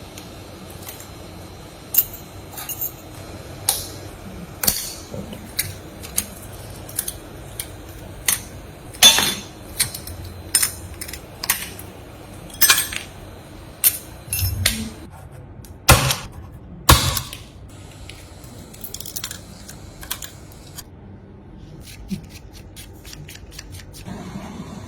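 Irregular sharp clicks and taps of small tools and phone parts being handled during an iPhone back glass repair, several dozen over the stretch, a few much louder than the rest, over a faint steady hum.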